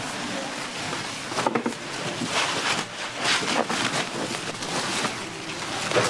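Heads of napa cabbage being split and pulled apart by hand: a steady crisp rustle and crackle of leaves, with several sharper crunches.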